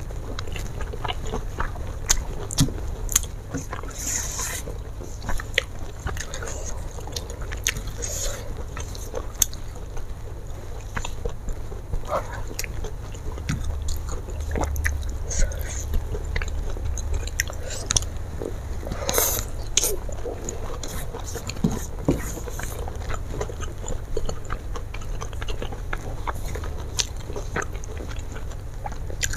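Close-up chewing and mouth sounds of someone eating rice, fried fish and sambal by hand, with scattered small clicks and crunches, over a steady low hum.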